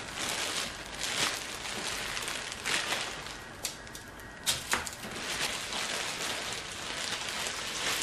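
Rustling and crinkling of aluminium foil as breadcrumb-coated chicken drumsticks are handled and set down on a foil-lined baking tray, with a few sharper clicks near the middle.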